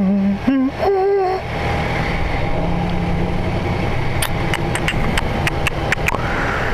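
Yamaha FZ1's inline-four engine idling at a standstill, a steady low running. A man hums briefly until about a second in, and a quick run of sharp clicks comes about four seconds in.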